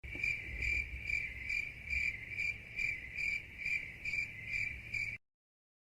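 Crickets-chirping meme sound effect, the gag for an awkward silence: a cricket's steady high trill pulsing about twice a second, cutting off suddenly about five seconds in.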